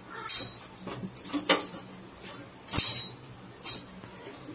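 Steel kitchen tongs clinking against the gas stove's burner grate and cookware while a roti is turned over the flame: several sharp metallic clinks, about one a second.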